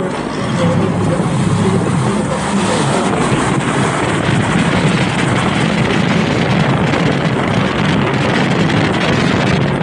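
Steady road and wind noise from a moving vehicle, with a strong low rumble and wind hiss on the microphone.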